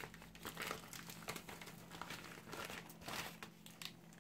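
Plastic shipping mailer crinkling and rustling in irregular bursts as it is cut open with scissors and a small card package is pulled out of it.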